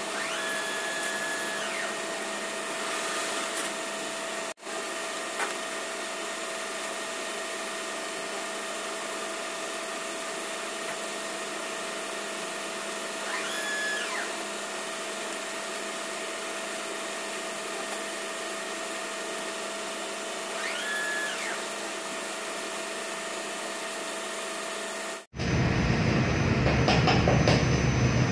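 Steady machine whir with a constant hum. Near the end it cuts off abruptly and gives way to a louder, deeper rumble.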